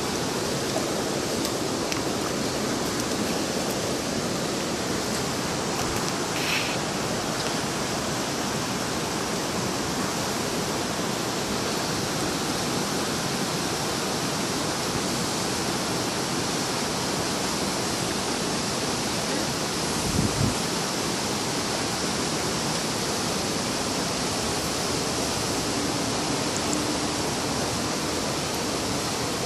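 Steady, even rushing noise that holds the same level throughout, with one brief low thump about twenty seconds in.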